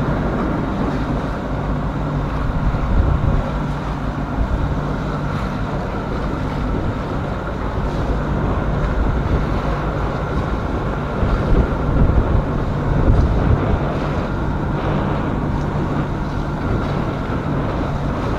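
A sailboat's engine running steadily under way in strong wind, with wind buffeting the microphone and water rushing along the hull; the wind gusts harder a little past the middle.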